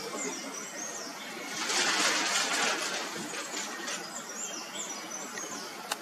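Small birds twittering, with short high falling chirps near the start and again later. About a second and a half in, a louder hissing rustle swells and fades over about a second and a half.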